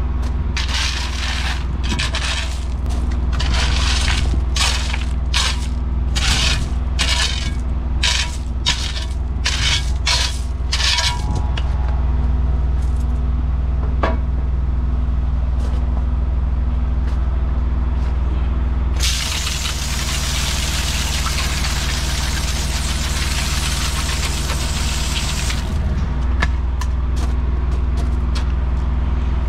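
An engine running steadily under a string of short hissing bursts, roughly two a second, for about the first eleven seconds. About two-thirds of the way through, a continuous hiss of spraying runs for about six seconds, then stops.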